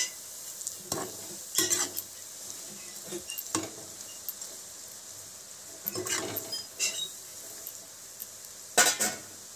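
Strips of nimki dough deep-frying in hot oil with a steady sizzle, while a perforated metal slotted spoon scrapes and clinks against the pan as they are turned, several times, the loudest stroke near the end.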